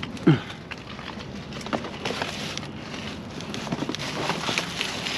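Cardboard boxes and plastic rustling and scraping as someone rummages through a dumpster, with scattered small clicks and knocks. A brief loud sound sliding down in pitch comes near the start.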